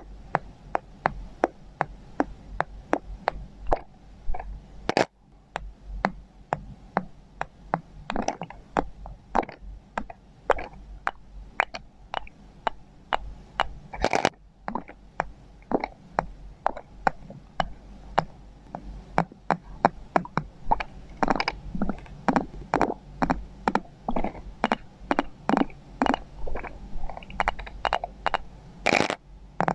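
Small glass ampoule bottles being knocked and tapped, a steady run of light clicks about two a second, with a few sharper strikes.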